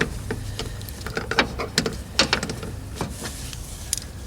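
Irregular plastic clicks and knocks of a part being turned and fitted by hand in a car's headlight assembly, over a steady low hum.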